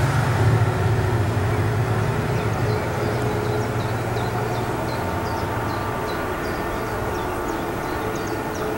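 A low engine rumble that fades away over the first few seconds, leaving a steadier distant motor drone with a few held tones, and small high chirps from a couple of seconds in.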